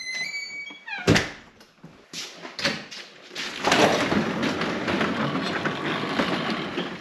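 Overhead garage door being hauled up by hand: a loud thunk about a second in, then the door rumbles and rattles steadily up its tracks for the last three seconds or so. A short high-pitched call sounds at the very start.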